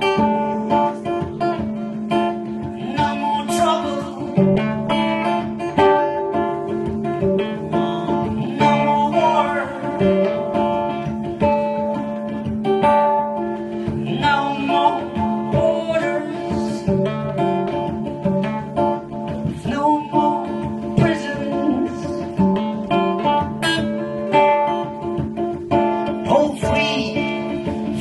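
Acoustic guitar strummed steadily in a song, with a man singing over it into a microphone at times.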